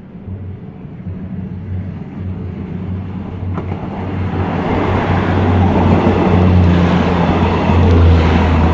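Diesel locomotive-hauled train approaching and passing, a steady low engine drone under wheel and rail noise that builds over the last few seconds.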